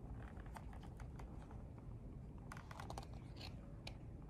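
Faint, scattered light clicks and ticks, with a small cluster about two and a half to three and a half seconds in: a hardcover picture book being handled, fingers and nails against its cover and pages.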